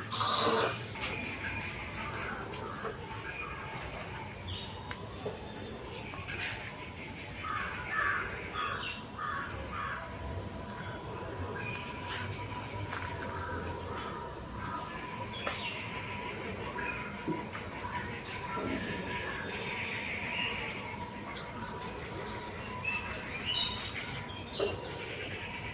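Steady, high pulsing chirring of insects, with scattered short bird calls over it. A brief louder noise comes right at the start.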